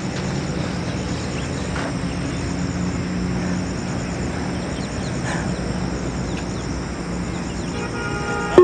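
Steady outdoor background noise with a low hum. Near the end comes a short beep from the Yo-Yo test recording, the timing signal that paces the shuttle runs.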